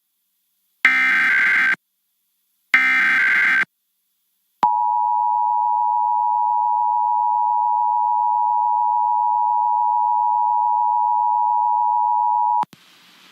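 Emergency Alert System test tones. First come two short bursts of SAME digital header data, each about a second long. Then the EAS attention signal, a steady two-tone tone (853 and 960 Hz), is held for about eight seconds and cuts off.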